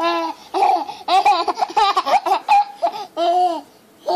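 A baby laughing hard in a run of about six high-pitched bursts of giggles and squeals, falling quiet briefly near the end.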